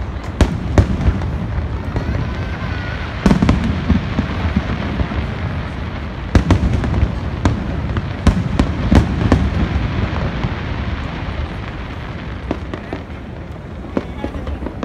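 Aerial fireworks shells bursting: a string of sharp bangs over a continuous rolling rumble of echoing booms. The bangs come thickest in the middle and thin out near the end.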